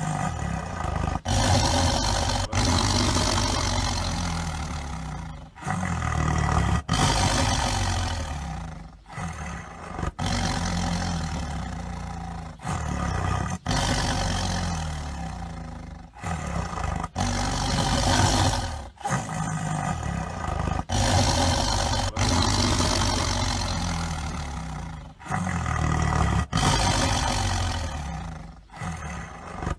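Tiger roaring again and again: a string of loud roars, each starting suddenly and fading away over one to three seconds, joined by abrupt cuts.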